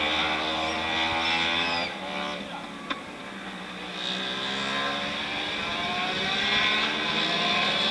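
Several racing motorcycles on a warm-up lap, their engines revving and changing pitch as they pass. The sound eases off midway, then builds again as more bikes come round. A short sharp click about three seconds in.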